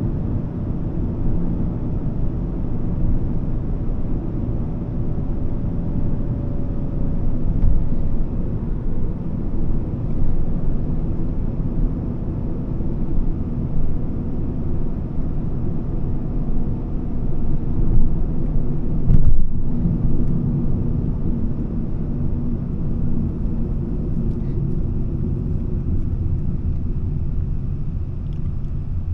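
Volvo S40's 2.4-litre five-cylinder petrol engine and tyre noise while driving, heard from the cabin: a steady low rumble, briefly louder about two-thirds of the way in.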